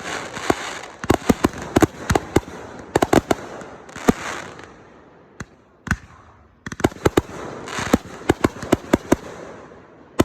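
Fireworks going off: volleys of sharp bangs and crackles in quick succession with a hissing spray between them. A lull about halfway through holds only a lone bang before another rapid volley.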